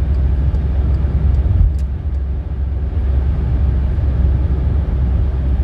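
Steady low rumble of a car on the move, engine and road noise heard from inside the cabin, with a small thump about a second and a half in.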